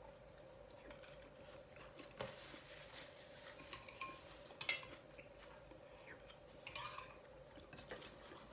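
Metal spoon clinking and scraping against a bowl of congee: a few light, separate clinks, the sharpest a little under five seconds in. A faint steady hum runs underneath.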